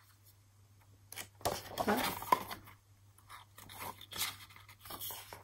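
Stiff pages of a large photo book being handled and turned, the paper rustling and crackling in short irregular bursts after a quiet first second or so.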